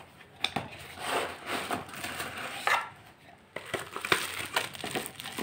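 Cardboard box being opened and a webcam in a plastic bag pulled out and handled: irregular scraping and rustling with a few clicks, and a short lull about three seconds in.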